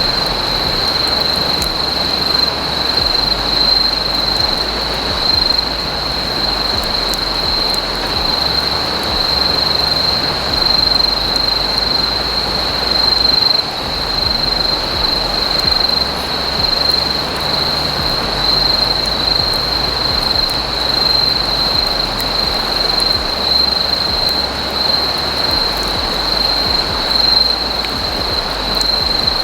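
Insects trilling on one steady high note over a constant rushing hiss, with faint scattered crackles.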